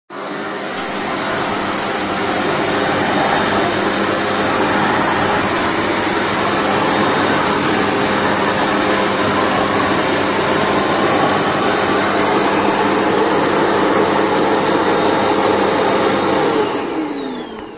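Toshiba paper-bag vacuum cleaner running steadily, a loud rush of air with a steady high whine. Near the end it is switched off and the motor winds down, its pitch falling away.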